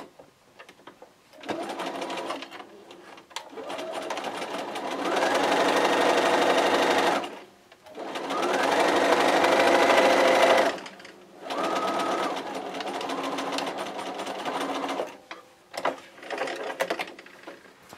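Bernina sewing machine stitching a quarter-inch seam, running in several stretches with short stops between them. It speeds up into two faster, louder runs in the middle, then slows again and ends in a few short bursts.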